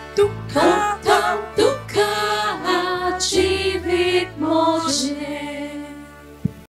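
A small mixed choir singing a Konkani hymn into microphones, with guitar, violin and keyboard accompaniment. The music cuts off suddenly near the end.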